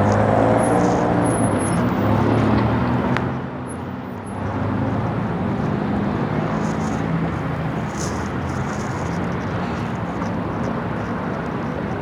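City road traffic: vehicle engines running with a steady low hum. It eases briefly about four seconds in.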